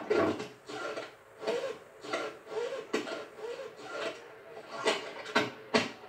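Animated-film sound effects of an insect bar scene, played through a TV speaker: a busy run of knocks, rubs and clatter, with wavering creature-like warbles in the middle.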